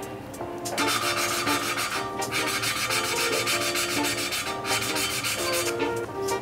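A valve being hand-lapped into its seat in a Volvo 2.5T five-cylinder cylinder head: a lapping stick spun back and forth between the palms grinds the valve face against the seat with grinding paste. It gives a gritty rasping in two long stretches, with a short break about two seconds in.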